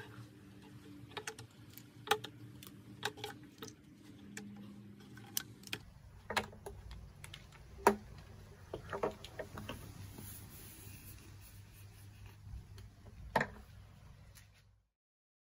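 Irwin Quick-Grip one-handed bar clamps being released and taken off a ukulele body, a string of separate sharp plastic clicks and knocks as each clamp lets go and is set down. The loudest click comes about eight seconds in.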